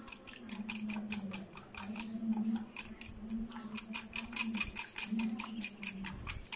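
Wire whisk beating a runny egg, milk and mashed-banana batter in a glass bowl, its wires clicking against the glass several times a second. A low hum comes and goes underneath.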